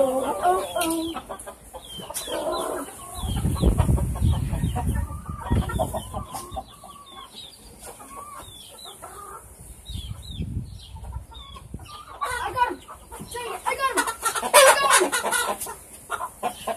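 Chickens clucking and squawking as they are chased around their pen, with a louder flurry of squawks near the end. A low rumble comes about three seconds in and again around ten seconds in.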